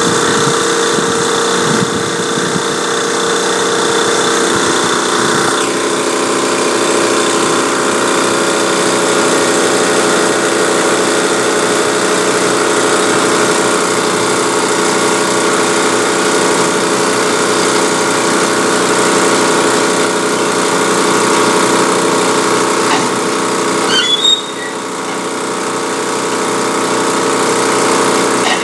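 Spray rig's engine-driven pump running steadily while its spray gun jets water into a plastic bucket, the output being caught and timed to calibrate the sprayer. A brief dip with a short squeak comes near the end.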